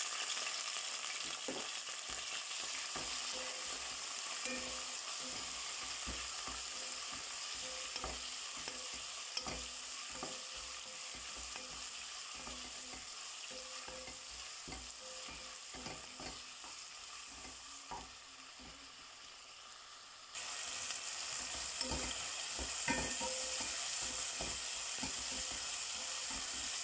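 Chopped tomatoes sizzling in hot coconut oil in a pan, with a spatula stirring and scraping through them in short clicks. The sizzle slowly fades, then jumps louder again about two-thirds of the way through.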